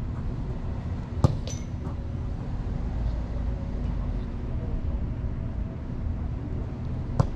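Two sharp thuds of a futsal ball being kicked, about six seconds apart. A short metallic clink follows the first. A steady low rumble lies under both.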